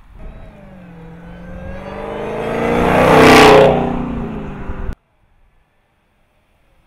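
Dodge Charger SRT Hellcat's supercharged 6.2-litre V8 accelerating past, its engine note rising in pitch and growing louder to a peak about three seconds in, then fading. The sound cuts off abruptly about five seconds in.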